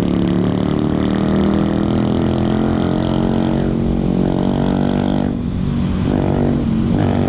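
Yamaha NMAX scooter engine running at a steady pace while riding, its note dipping and rising again in the last couple of seconds.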